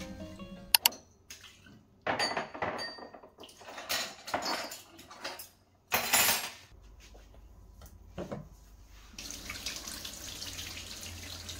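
Dishes, glasses and cutlery clinking and clattering in irregular bursts as they are handled at a kitchen sink, the loudest about six seconds in. About nine seconds in, a kitchen tap starts running steadily over hands being washed in the sink.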